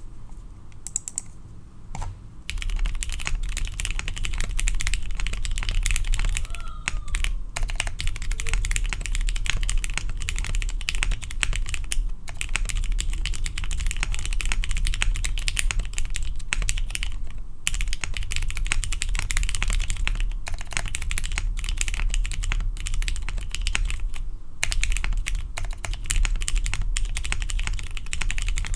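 Fast continuous typing on a Midway60 mechanical keyboard with lubed and filmed Cherry MX Black Hyperglide linear switches, a half aluminium plate and CRP keycaps. It starts with a few scattered keystrokes, then runs as a steady stream of clicks with a couple of brief pauses.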